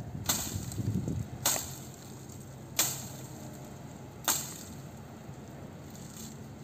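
Four sharp chopping strokes about a second and a half apart as a hand tool is swung into thorny scrub branches, cutting them away.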